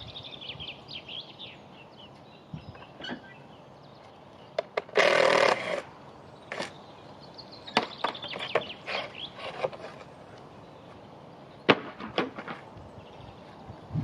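Timber formwork being stripped from a cast concrete arch: scattered knocks and clicks of wood and clamps being handled, with one short loud burst about five seconds in. Birds chirp faintly in the background.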